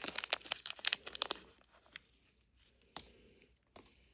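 Thin plastic wrapper crinkling and tearing as a Mini Brands capsule ball is unwrapped. There is a dense run of crackles over the first second and a half, then a few separate crinkles.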